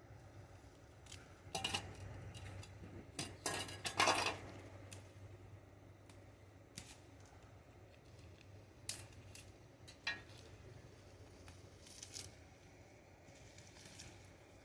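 Metal shovel blade scraping and clinking against a concrete slab while dirt is shoveled off it: a flurry of scrapes and strikes a couple of seconds in, then a few single clinks.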